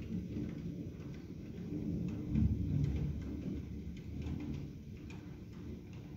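Thunder rumbling low, swelling about two and a half seconds in, with scattered light ticks.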